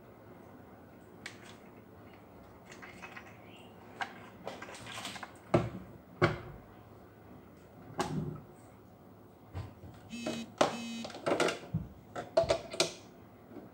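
Handling noise from a cordless circular saw being turned over and set down on a table: scattered knocks, clicks and plastic rattles, with a short rasping rattle about ten seconds in, then the clicking of a charger's cord being handled.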